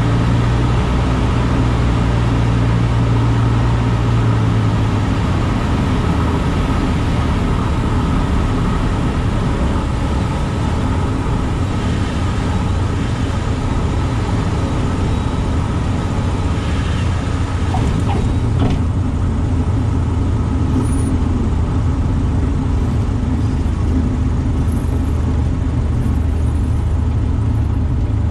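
Single-engine light aircraft's piston engine and propeller, heard from inside the cockpit, running with a steady drone; about five seconds in its pitch steps down as power comes back for the landing, and it runs on at the lower note through the touchdown and rollout.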